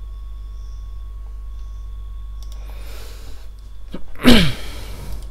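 A person sneezes: a soft breath drawn in about three seconds in, then a loud, short sneeze with a falling voice just after four seconds, over a steady low electrical hum.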